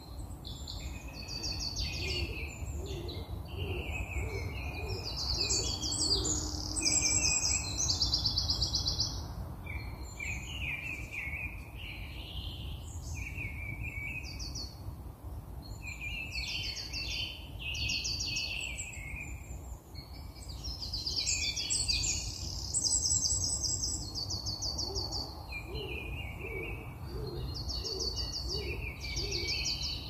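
Several songbirds singing and calling together, a dense mix of high chirps and rapid trills, over a low steady rumble.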